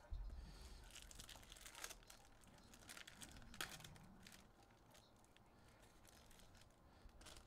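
Foil wrapper of a trading-card pack being torn open and crinkled by hand. It is a faint crackling with a few sharper crinkles.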